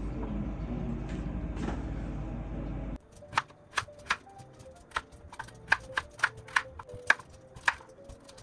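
Knife cutting a kohlrabi into cubes on a wooden cutting board: irregular sharp knocks of the blade striking the board, about two a second, starting about three seconds in. Before that, a steady low hum.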